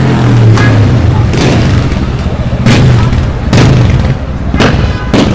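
A series of sharp, loud bangs, about one a second, over a steady low drone and busy street noise.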